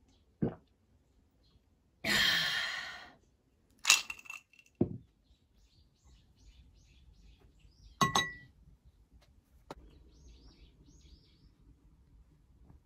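Glass on glass: a glass lid knocks and clinks, ringing briefly, as it is set onto a large glass jar, with a duller knock and a second-long rattling scrape before it. Small birds chirp faintly in the background in the second half.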